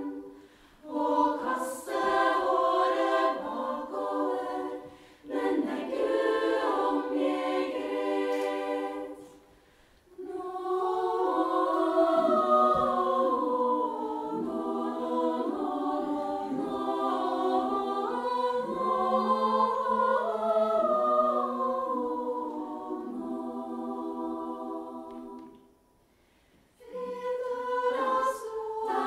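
Female choir singing in several parts, in phrases broken by two short pauses.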